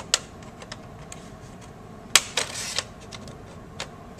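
Plastic retaining tabs of a laptop screen's front bezel snapping as a flathead screwdriver pries it loose: a few sharp clicks, the loudest about halfway through, followed by a short scrape of plastic. The snapping is just the tabs releasing, not parts breaking.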